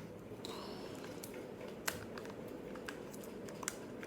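Faint handling of plastic slime packaging: a few scattered sharp clicks and light crinkling, over a low steady hum.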